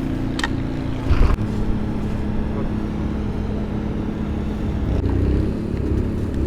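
Compact excavator's diesel engine idling steadily, with a short knock about a second in.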